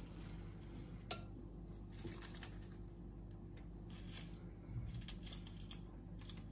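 Faint simmering of a pot of herbal tea (linden, cloves, quince, oleaster) on the stove: scattered soft pops and ticks over a steady low hum.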